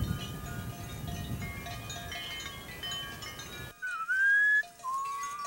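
Chime-like music over a low rustling noise. About four seconds in, a man whistles through pursed lips: a short rising whistle, then a longer, wavering one.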